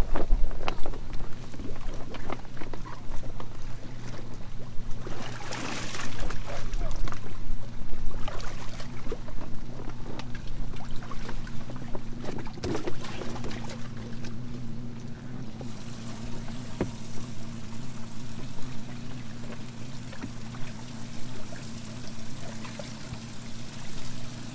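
Water sloshing and pouring as a plastic tournament weigh bag is filled from a bass boat's livewell and bass are lifted out. Scattered short knocks and a steady low hum run underneath.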